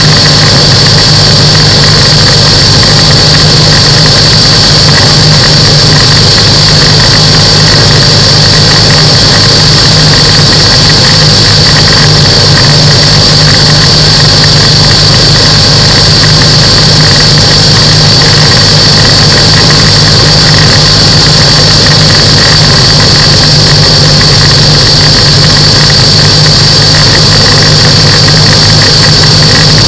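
Microlight aircraft's engine and propeller running steadily and loudly at an unchanging pitch, with a constant high whine over a rushing noise.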